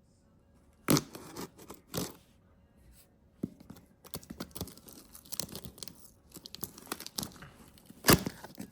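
Packaging being torn open by hand: three sharp rips, about a second in, two seconds in and near the end, with a run of crinkling and crackling between them.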